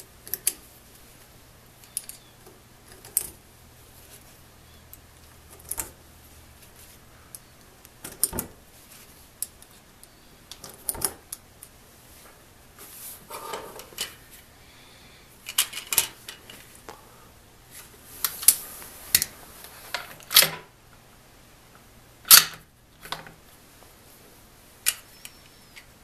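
Snap caps being pushed one at a time into a .22 LR rifle's detachable box magazine: a series of sharp clicks a second or more apart, with soft handling rustle between them.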